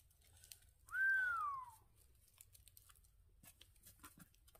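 A single whistled note about a second in, lasting about a second, rising briefly and then sliding down in pitch. Faint scattered clicks and rustles sound around it.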